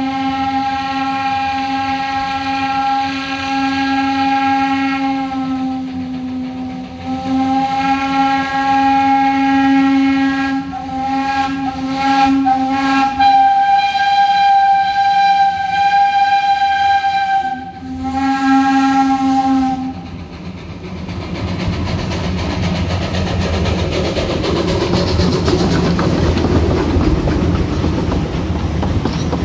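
Steam locomotive's whistle blown as a chord of several steady tones in a few long blasts with brief breaks, lasting about twenty seconds. Then the locomotive and its passenger coaches rumble and clatter past on the rails.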